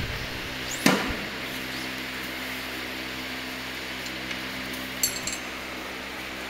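Handling noises from fitting a plastic protective cap onto a bicycle's front fork for packing: a sharp knock about a second in and a brief rattle of fine clicks about five seconds in, over a steady hum.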